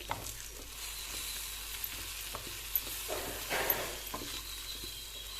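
Turkey berries, onions and spice powders frying and sizzling in gingelly oil in a kadai while a spoon stirs them through, with scattered clicks and scrapes of the spoon against the pan.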